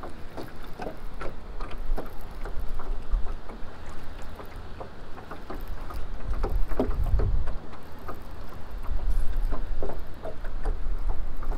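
Small waves lapping and slapping irregularly against a jon boat's hull, with wind rumbling on the microphone that swells about six seconds in and again near the end.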